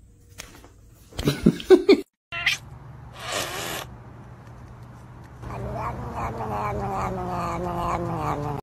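A kitten's few loud, short cries, then a different cat's short hiss and a long, low growling yowl that slowly falls in pitch as a finger pokes at its face.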